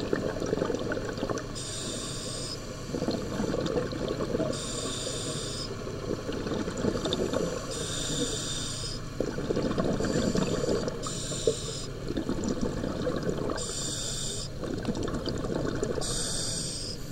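Scuba diver breathing through a regulator underwater. A short hiss of inhalation comes about every two to three seconds, and a bubbling, gurgling rumble of exhaled air fills the gaps between them.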